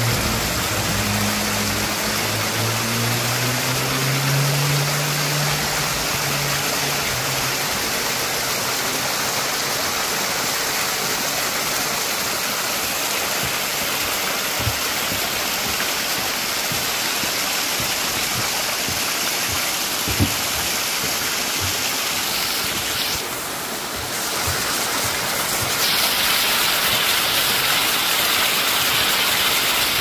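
Mountain stream water splashing and rushing over granite rocks in small cascades, a steady loud rush. A low wavering hum sounds underneath for the first several seconds and fades out. The rush dips briefly about two-thirds of the way through, then comes back a little louder.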